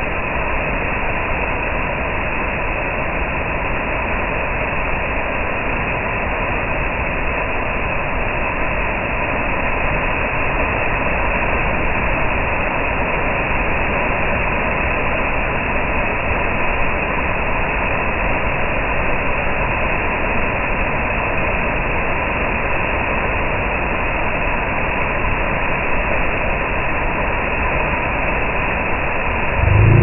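Waterfall pouring into a plunge pool: a loud, steady rush of falling and churning water, heard close up.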